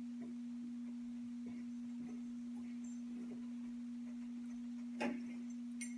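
Steady low hum, one unchanging tone, with a sharp knock about five seconds in and a lighter click just before the end.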